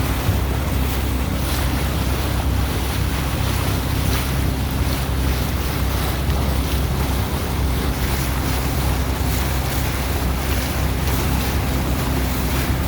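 A vehicle engine running steadily, its low hum buried under heavy wind noise buffeting the microphone.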